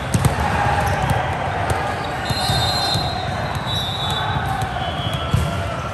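Ball game on an indoor court: a ball bouncing and knocking on the hard floor again and again, with short high squeaks and voices in the background.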